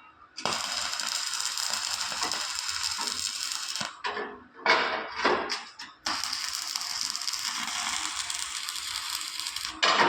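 Arc (stick) welding: an electrode arc crackling and sizzling steadily on a steel plate, in two runs with a break of about two seconds between them.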